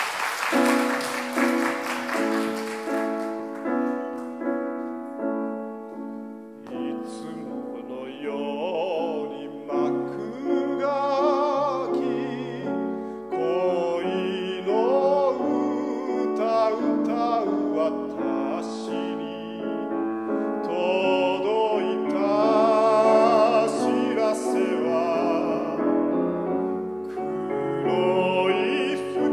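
Grand piano playing an introduction, joined about eight seconds in by a trained male classical voice singing with a strong vibrato over the piano accompaniment.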